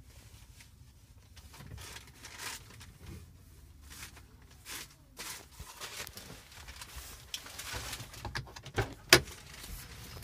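4-inch PVC pipe pieces being handled and fitted together: irregular scraping and rubbing of plastic with scattered knocks, and one sharp, loud click about nine seconds in.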